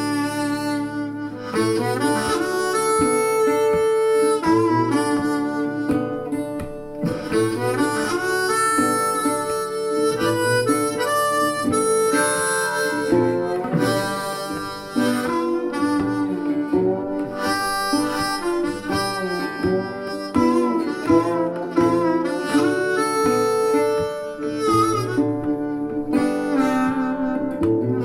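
Instrumental music played back through Grundig Super HiFi Box 2500 loudspeakers as a hi-fi audio test: a sustained melody line over plucked accompaniment.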